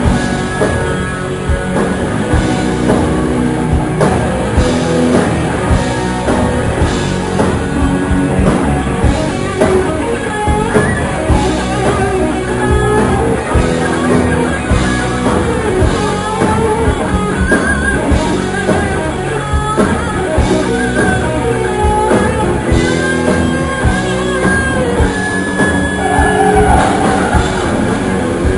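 Live metal band playing loud: electric guitars and drum kit.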